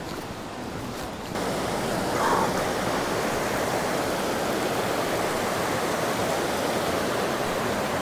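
Fast-flowing rocky mountain stream rushing and splashing over boulders as a steady, dense rush of water. It starts abruptly about a second in, after a quieter first second.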